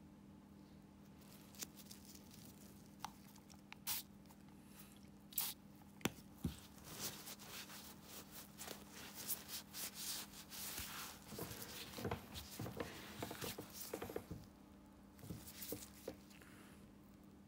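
Close rustling and rubbing of thin plastic gloves and a cloth towel wiping a toe, after a few scattered sharp clicks of a steel nail tool against the toenail. The rustling is densest in the middle and stops about 14 s in, with one more short burst after it, all over a faint steady hum.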